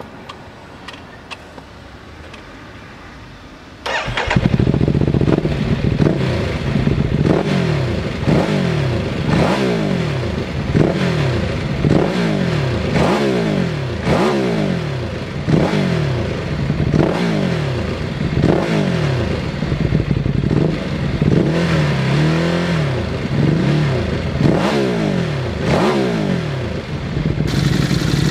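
Ducati Hypermotard 821 engine breathing through an SC-Project 2-1 exhaust. It starts about four seconds in, after a few light clicks, and is then blipped over and over, about once a second, each rev rising and dropping back. Near the end it settles to idle.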